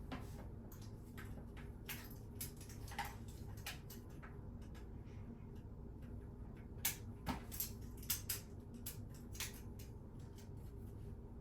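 Light, irregular clicks, ticks and scrapes of a razor blade working under the snap-on plastic hinge covers of a toilet seat to pry them up. A cluster of louder clicks comes past the middle.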